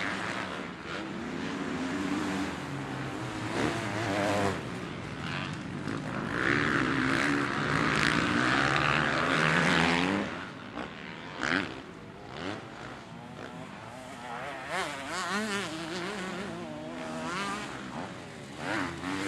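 Motocross dirt bike engines revving, pitch rising and falling with the throttle. Loudest stretch about six to ten seconds in, then quieter, with the engine note wavering up and down.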